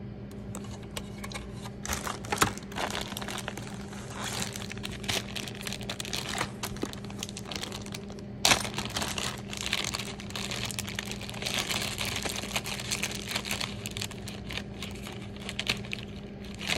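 Clear plastic bag crinkling as a car-radio wiring harness is handled and pulled out of it: irregular crackles with a couple of sharper snaps, about two and a half and eight and a half seconds in, over a low steady hum.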